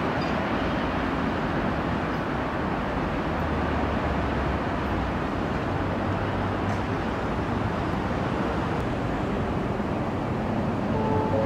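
Steady, even vehicle rumble with no distinct wheel clatter; two steady tones sound briefly at the very end.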